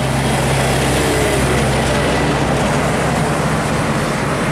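DAF CF diesel tractor unit pulling a loaded multi-axle semi-trailer past and away, a steady low engine note under loud tyre and road noise.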